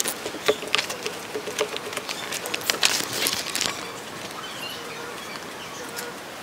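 Pen scratching on notebook paper and pages rustling as someone writes, a quick run of small scratches and rustles that thins out after about four seconds.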